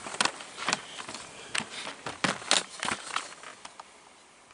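A run of short, sharp clicks and knocks, about eight over three seconds, then quieter: handling and movement noise as someone leans into the car at the open door.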